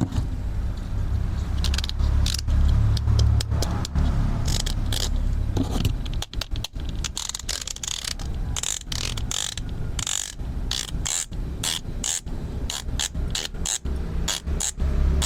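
Plastic toy tools being worked: a low steady whir for about the first six seconds, then quick ratcheting clicks in rapid succession.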